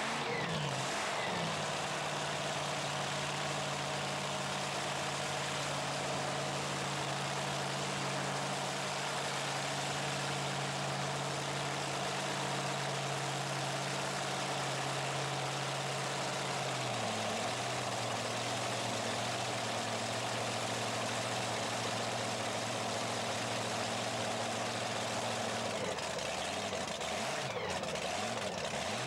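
Modified pulling tractor's multiple supercharged engines idling steadily. The idle drops a little in pitch just after the start and again about two-thirds of the way through, then turns uneven near the end.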